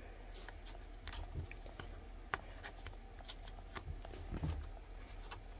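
Faint clicks and rubbing of a gloved hand pressing a Morgan silver dollar into a slot in a coin album page, with one sharper click a little after two seconds in.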